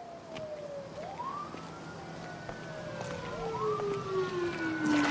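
A wailing siren: its pitch rises quickly and then falls slowly, twice, and the sound grows louder.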